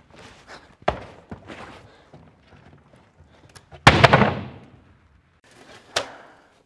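A loud bang about four seconds in that rings off over half a second, with softer knocks and clicks before and after it.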